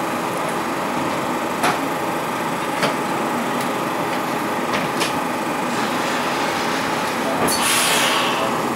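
Steady hum inside a Düsseldorf Stadtbahn light-rail car standing at a stop. A few sharp clicks come in the first half, and a hiss of air lasting about a second near the end is the loudest sound.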